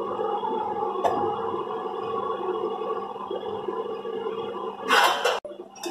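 Chicken pieces cooking in oil in an aluminium pot, a steady bubbling and sizzling. A short loud burst of hiss near the end cuts off abruptly.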